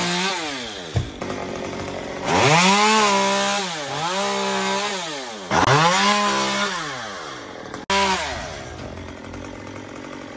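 Two-stroke chainsaw cutting through a tree trunk: the engine falls from full throttle to idle, is revved up twice more for a couple of seconds each, its pitch dipping briefly as the chain bites the wood, then drops back to idle near the end.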